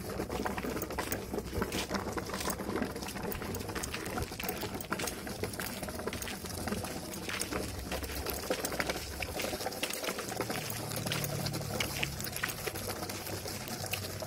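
Cardboard toy truck pulled along by a string over gravel and packed dirt, its cardboard wheels rolling with a continuous rapid crackle of small clicks and rattles.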